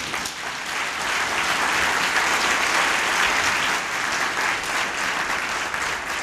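A large audience applauding. The clapping swells over the first second or so, holds strong and steady through the middle, and eases off a little near the end.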